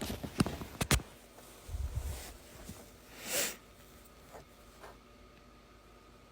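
Handling noises from crystals and their packaging: a few sharp clicks in the first second, a low thump about two seconds in, a brief swish about three and a half seconds in, then two faint ticks.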